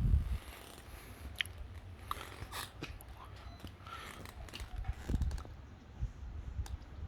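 Faint handling noise: low thuds on the microphone at the start and again about five seconds in, with scattered small clicks and scrapes. No engine is running.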